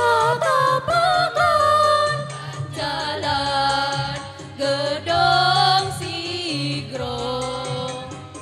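Women's choir singing together, holding long notes in phrases with short breaks between them.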